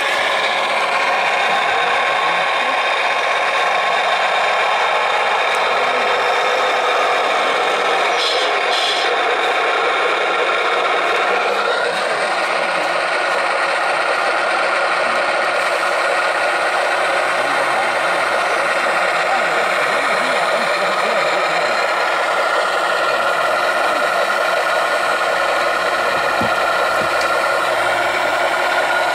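Radio-controlled scale Caterpillar wheel loader's electric drive running: a steady, dense mechanical whir with rattling.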